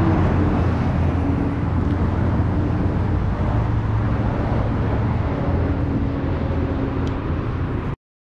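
Road traffic: a steady rush of passing cars and engine hum that cuts off abruptly near the end.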